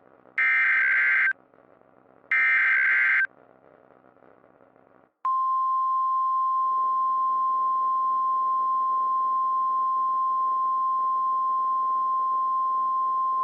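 Emergency alert tones announcing a winter storm warning. First come the last two of the three digital SAME header bursts, each just under a second long and a second apart. About two seconds later the steady single-pitch 1050 Hz NOAA Weather Radio warning alarm tone starts and holds.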